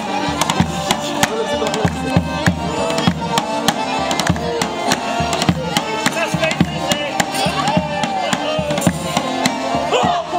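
Live folk dance music: a large double-headed tapan drum beats a steady, fast rhythm under an accordion melody.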